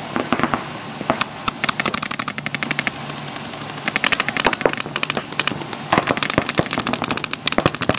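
Paintball markers firing rapid strings of shots, several guns going at once in bursts of about ten or more shots a second.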